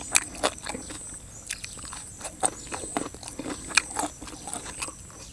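Close-miked chewing of chicken feet in a spicy fish-sauce salad: irregular crunchy clicks and wet mouth sounds.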